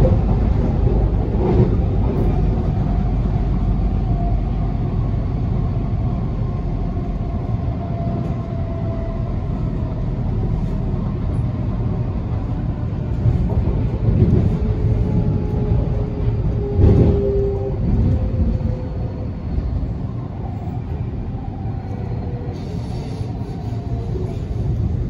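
Canada Line SkyTrain running along its elevated guideway, heard from inside the car: a steady low rumble with a faint whine that drifts in pitch. A steady tone holds for a few seconds about halfway through, and two short knocks come, one near the start and one about two-thirds of the way in.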